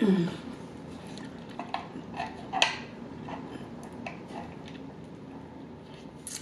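A person sipping a drink through a straw from a large fountain-drink cup, with scattered light clicks and taps from the cup, the loudest about two and a half seconds in. A short falling hum of the voice comes at the very start.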